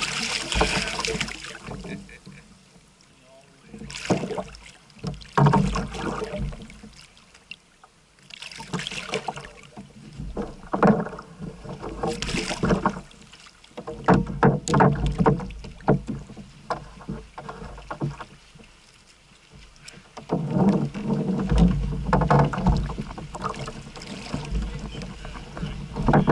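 Water splashing and knocking against a fishing kayak in irregular bursts with short quieter gaps, as a hooked blue catfish is fought at the side of the boat.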